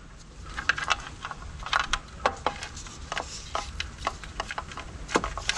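Irregular small clicks and rustles as e-bike wiring and plastic plug connectors are handled and pushed together by hand.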